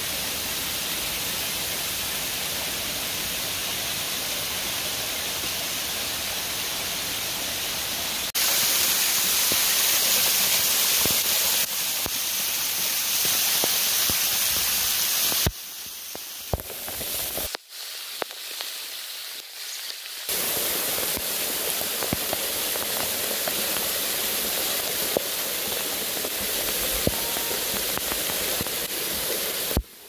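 Rushing water of a waterfall, an even hiss that steps abruptly louder about eight seconds in and drops much quieter for a few seconds around the middle before returning.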